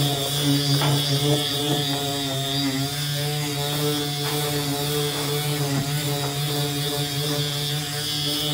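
Pneumatic orbital sander running steadily, its 240-grit disc on a foam interface pad sanding aluminum: a steady hum with a hiss above it and a few faint ticks of the pad on the metal.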